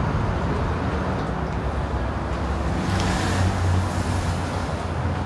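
Steady rumble of road traffic, with a louder swell of noise about three seconds in.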